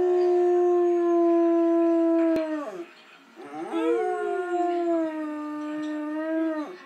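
Vizsla dog howling: two long, steady howls. The first drops in pitch and ends about three seconds in; the second starts with a short rise and is held until near the end.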